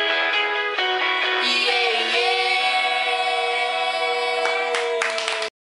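Young male and female voices singing together over a guitar backing, ending on a long held closing note with a few short clicks near the end. The song cuts off abruptly about five and a half seconds in.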